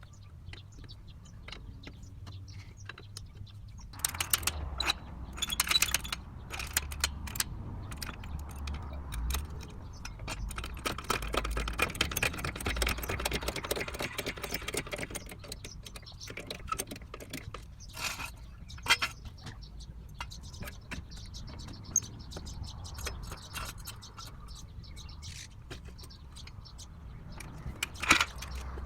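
Metal hand tools clinking, knocking and scraping on car wheel and brake parts. A run of rapid clicking comes in the middle, and a sharp metallic clink comes near the end.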